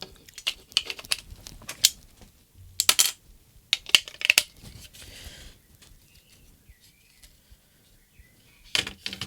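Small sharp clicks and taps of a wire connector and plastic parts being handled and plugged into a radio transmitter's circuit board. The ticks come in quick runs in the first half, go quiet for a few seconds, and come back near the end.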